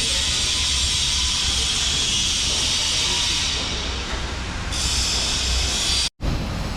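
A steady hiss over a low rumble, broken by a brief total dropout about six seconds in.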